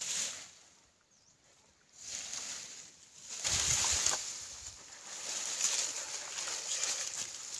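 Leafy cut branches and vines rustling and crackling as they are grabbed and gathered by hand, with footsteps on grass; a short quiet spell comes about a second in.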